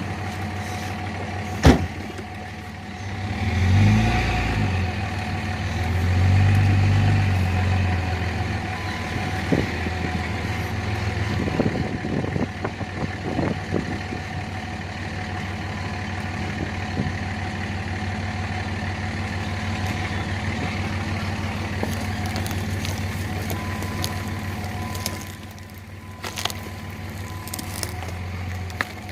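A vehicle engine running steadily, swelling louder twice a few seconds in as it is revved or takes load, with one sharp knock just before that.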